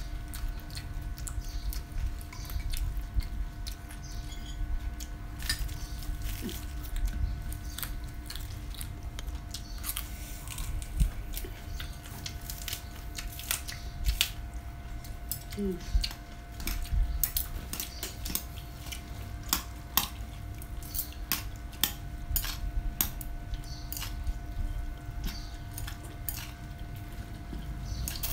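Close-up eating sounds: chopsticks and spoons clicking against ceramic bowls, with chewing of crisp fresh vegetables and rice noodles. The clicks come irregularly throughout and grow more frequent in the second half.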